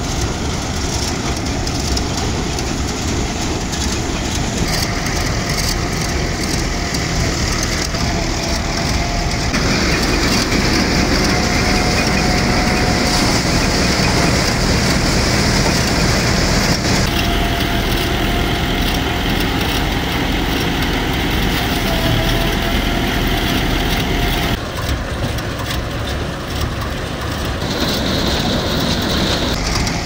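Tractor-powered rice thresher running, a loud steady mechanical rattle and clatter with a faint whine, as sheaves of rice stalks are fed into it by hand. The sound shifts abruptly a few times.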